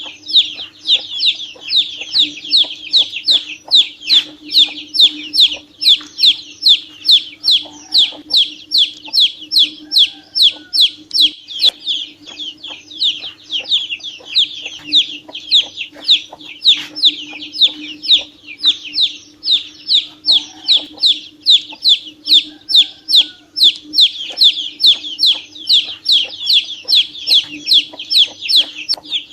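Domestic chick peeping steadily: a continuous run of short, high, falling peeps, about two to three a second, with a faint steady low hum underneath.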